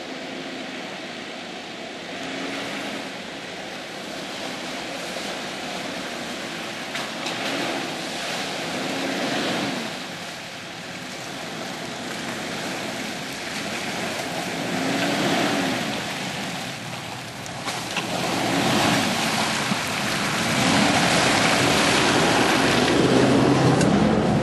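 Off-road 4x4 engines revving up and easing off again and again while the vehicles crawl through a deep mud track, with the wash of wheels churning mud and water. The engine sound grows louder near the end as another vehicle comes closer.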